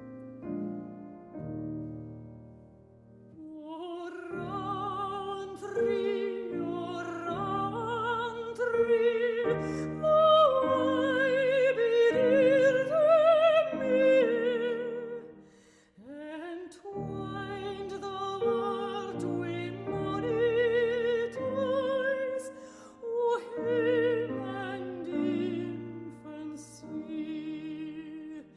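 Operatic singing with a strong vibrato over piano accompaniment; the piano plays alone at first and the voice enters about four seconds in.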